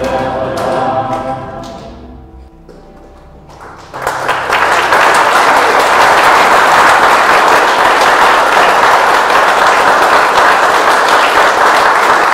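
Voices singing a Latvian folk song to plucked kokles, with a dižkokle among them, fade out over the first two seconds as the last low notes ring on. About four seconds in, an audience breaks into loud, steady applause.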